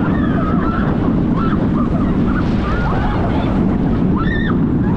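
Riders on a Mack Stryker coaster give short shouts and screams over the loud, steady rumble of the coaster train and wind on the microphone.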